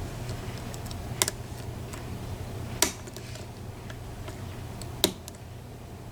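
Lock picks working inside a PACLOCK 90A padlock: faint metallic ticks with three sharper clicks spread out over a few seconds, over a steady low hum.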